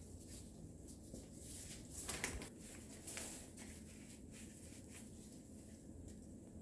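Faint scratching and rustling of potting soil and small ZZ plants being handled in a pot, with a few louder scrapes about two and three seconds in.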